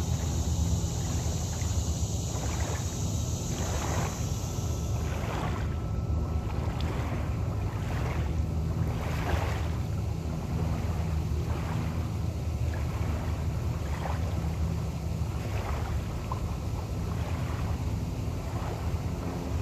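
Boat engine running steadily under way, with wind noise on the microphone.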